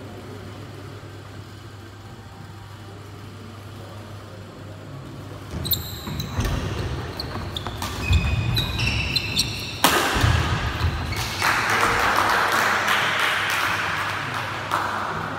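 Badminton doubles rally on a wooden indoor court: racket strikes on the shuttlecock, sneakers squeaking and feet thudding, starting about five seconds in after a steady low hall hum. The point ends in a few seconds of loud cheering.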